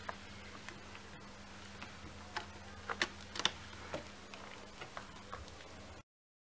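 Scattered light clicks and taps, thickest around the middle, as a kitten bats and bites a feather wand toy, over a low steady hum. The sound cuts off suddenly near the end.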